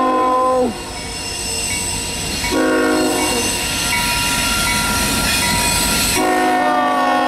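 CSX freight diesel locomotive's multi-note air horn sounding for a grade crossing. A long blast drops in pitch as it cuts off under a second in, a short blast comes about two and a half seconds in, and a long blast starts about six seconds in. The rumble of the locomotives and train runs between the blasts.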